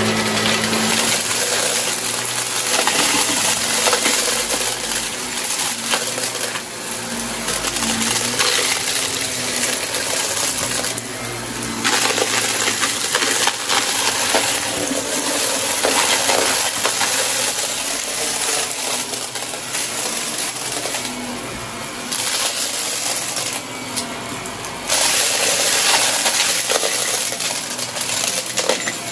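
Shark upright vacuum cleaner running over carpet, sucking up small hard bits of debris that crackle and rattle as they are pulled in.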